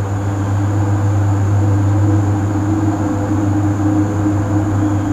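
A steady mechanical hum, with a low drone and a thin high whine above it that hold constant throughout.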